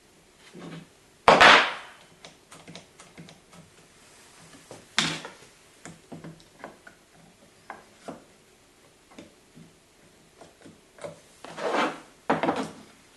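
One-hand bar clamps and a wooden batten being handled and set against a chipboard panel: a sharp wooden knock about a second in and another about five seconds in, small clicks and rattles between, and two more knocks near the end.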